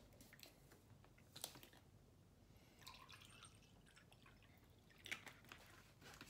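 Faint handling of a plastic water bottle: a click as the cap is worked, a short trickle of water poured into a glass around three seconds in, and a few light clicks near the end as the cap goes back on.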